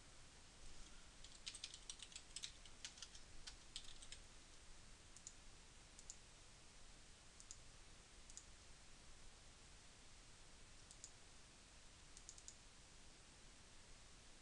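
Faint clicking of a computer keyboard being typed on for a few seconds, followed by scattered single mouse clicks.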